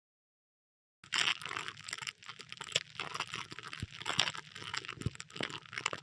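Irregular crunching, crackling noise made of many small clicks, starting about a second in.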